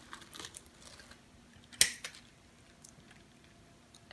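Crock pot glass lid being lifted off, with a few faint rattles, then a single sharp clack near the middle.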